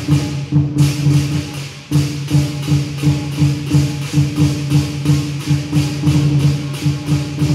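Lion dance percussion ensemble of drum, gong and cymbals playing a loud, fast, even beat with a steady ringing under it. The cymbals thin out about a second in, then the full beat comes back hard.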